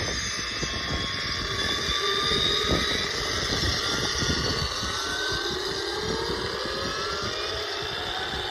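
Electric RC scale Bell 222 helicopter, built on an Align T-Rex 700 and fitted with a sound module, spooling up on the ground: several whines climb steadily in pitch as the main rotor starts to turn, over a steady rushing noise.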